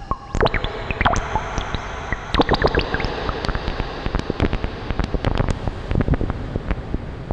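Ciat Lonbarde Peterlin analogue synthesizer being played by knob-twisting, putting out a chaotic stream of irregular clicks and blips with a few short pitch glides over a dense rumbling noise. It is heard through the reverb of a Teenage Engineering TX-6 mixer.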